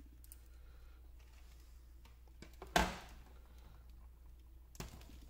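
Quiet handling noises from an opened e-bike lithium battery pack and its wiring being moved about on a bench mat, with one sharp knock about three seconds in and a lighter one near the end, over a steady low hum.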